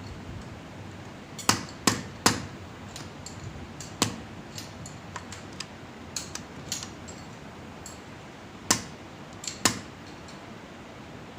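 Hammer blows on metal, about seven sharp strikes in irregular groups (three in quick succession, one alone, then a few more) with lighter taps and clicks between them, while a stuck part of an air-suspension front shock absorber is knocked at during disassembly.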